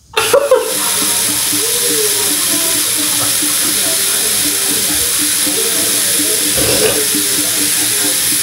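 Bathroom sink tap turned on and running steadily into the basin, the flow starting suddenly just after the beginning.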